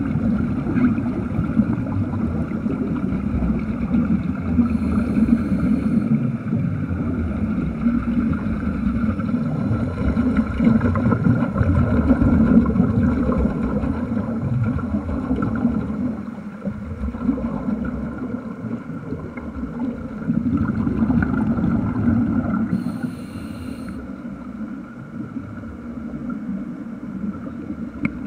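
Underwater rumble and bubbling of air venting from a Mark V hardhat diving helmet's exhaust, a continuous low noise that swells and eases.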